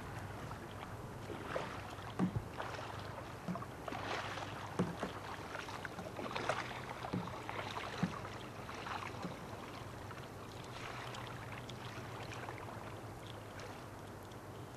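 Kayak paddle strokes: the blades dip and splash in the water in irregular swishes, with a few dull knocks among them. The splashing eases off about two-thirds of the way through.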